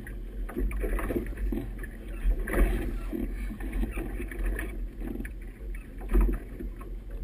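Wind buffeting the microphone with a steady deep rumble, and choppy river water splashing against the hull of a moving boat in irregular surges.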